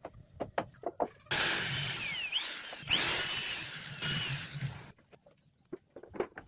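A power tool runs for about three and a half seconds, its pitch sliding up and down, with a brief break partway through. Light scattered knocks come before and after it.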